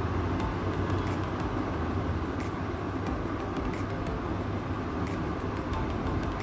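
Steady low rumbling background noise with faint scattered clicks.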